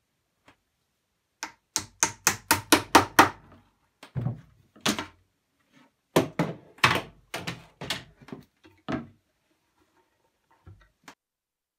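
Quick-release bar clamps being taken off a glued chair: a fast run of sharp clicking knocks, about five a second, then a second run a few seconds later.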